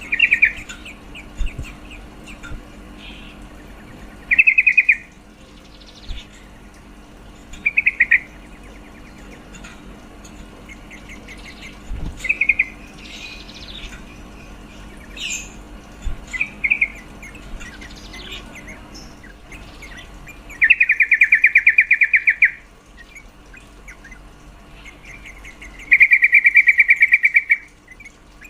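Female yellow-vented bulbul (trucuk) calling: short, rapid chattering trills every few seconds, then two longer trills of about two seconds each near the end. This is a female's call, the kind used to rouse male bulbuls into song.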